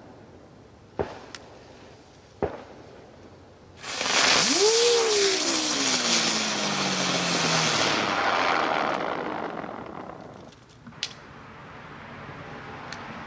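Ground bloom flower firework spinning on the ground. After a couple of sharp clicks it bursts into a loud hissing shower of sparks about four seconds in, with a whine that quickly rises in pitch and then slowly falls. The hiss dies away about ten seconds in, and a softer hiss builds again near the end.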